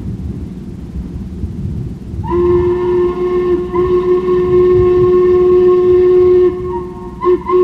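Steam locomotive whistle of the ex-Buffalo Creek & Gauley No. 13, a chime of several steady notes. It gives a blast of about a second, a longer blast of nearly three seconds, then two short toots near the end, over a low rumble.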